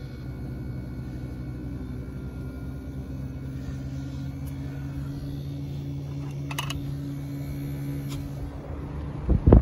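Daikin inverter mini-split outdoor unit running in heating mode on its first start-up, a steady hum with a low held tone that rises slightly in pitch about two seconds in as the pressures ramp up. A couple of loud bumps near the end.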